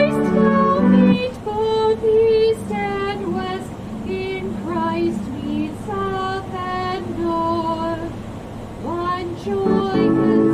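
A hymn being sung: a female voice carries the melody alone through most of the stretch. Sustained instrumental chords sound under the first second and come back in near the end.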